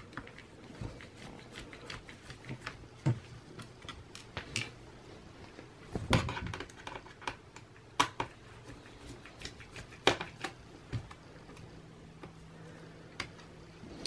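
Scattered light clicks and taps of a mini Phillips screwdriver turning out the battery screws on a laptop's underside, with a few sharper knocks as the hand moves across the case.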